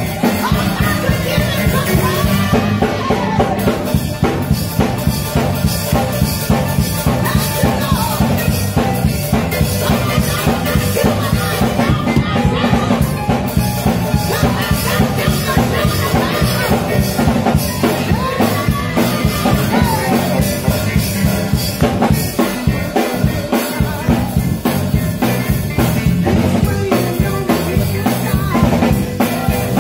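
Live gospel music with a full drum kit driving a steady beat, and a woman singing lead into a microphone with gliding vocal runs.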